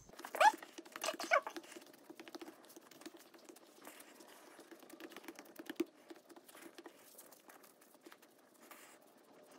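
Bread dough being kneaded by hand on a floured granite countertop: a run of soft pats, presses and small taps. Two louder sounds stand out about half a second and a second and a half in.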